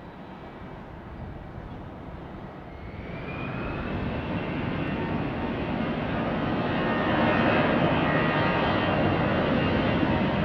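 Twin jet engines of an easyJet Airbus A320-family airliner spooling up on the runway: a low rumble with a whine that appears about two and a half seconds in, the sound growing steadily louder until about seven seconds in and then holding.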